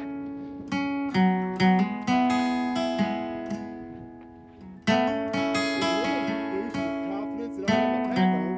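Solo acoustic guitar music: plucked notes and chords ringing out and fading, dying away about halfway through before a loud chord is struck.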